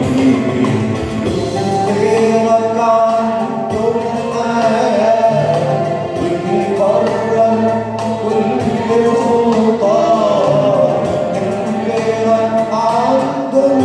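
A man singing an Arabic Christian hymn into a microphone, with steady musical accompaniment underneath.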